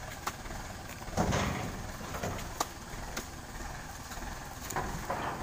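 Tractor engine running with a steady low rumble, under several sharp knocks and one heavier thud about a second in, as oil palm fruit bunches are speared on spiked poles and heaved into a metal trailer.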